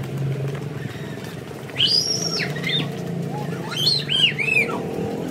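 Two bursts of high-pitched, gliding squeals from young children playing, about two seconds in and again near four seconds, over a steady low hum.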